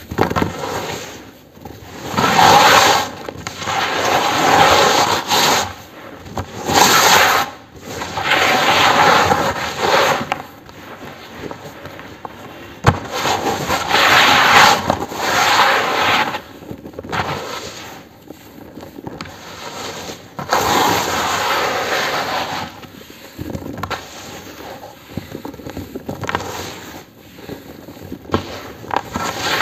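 Hand crushing dried lumps of cement into a tub of cement powder: gritty crunching and crumbling in repeated bursts of a second or two, with broken pieces falling into the loose powder.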